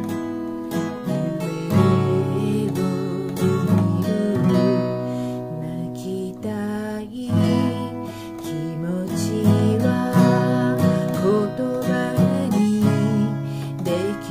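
Steel-string acoustic guitar strummed in a slow, steady chord pattern, with a woman singing a gentle melody over it.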